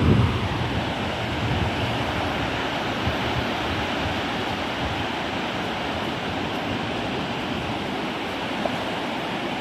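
Ocean surf washing steadily on the beach, with a low rumble fading out right at the start.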